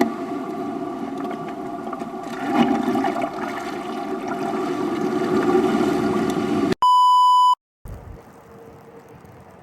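A dense steady drone of many held tones, cut off about seven seconds in by a loud, pure electronic beep lasting under a second; after a short gap only a faint hiss remains.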